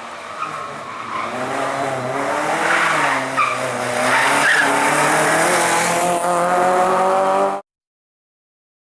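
Fiat hatchback rally car's engine revving hard as the car accelerates, the note climbing and then held high, with some tyre squeal. The sound cuts off abruptly near the end.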